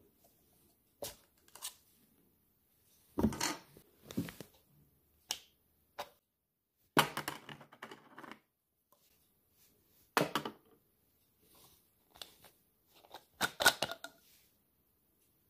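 Hard plastic parts of a foaming soap dispenser being handled, the clear soap bottle and its pump cap worked out of the white housing: scattered clicks, knocks and scraping rustles, with a longer scraping stretch about seven seconds in.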